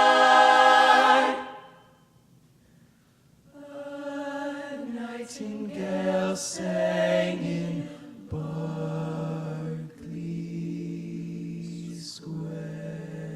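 A cappella vocal group singing without instruments. A loud held chord cuts off about a second and a half in, followed by a short pause. The voices then come back softly in a slow descending line and settle into a long held chord.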